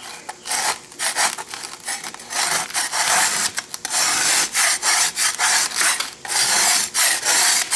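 Brass scraper scraping loose electrolysis rust off an anode in quick, repeated rasping strokes.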